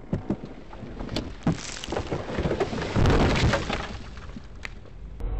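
Several sharp knocks, then a rough rushing noise on the microphone that is loudest about three seconds in, and another knock near the end.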